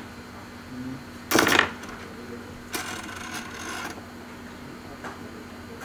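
Scraping and rubbing on a metal BGA reballing stencil held over a chip: a short sharp scrape about a second in, then a longer rasping rub, over a faint steady hum.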